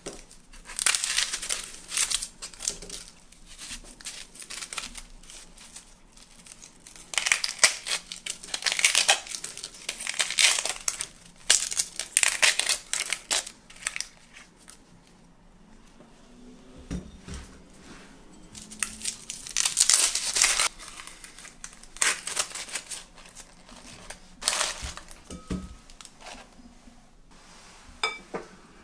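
Dry, papery onion skins crackling and tearing as they are peeled off with a knife, in irregular bursts with quieter gaps, with a couple of soft knocks.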